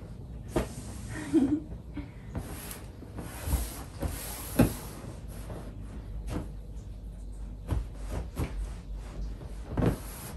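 SHOSU inflatable ride roll creaking, squeaking and rubbing as a person shifts her weight on it and moves to sit astride it. Irregular short knocks run through it, and a few sliding swishes come a few seconds in.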